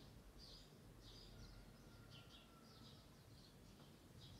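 Faint bird chirping, short high chirps repeating about twice a second, over a near-silent room.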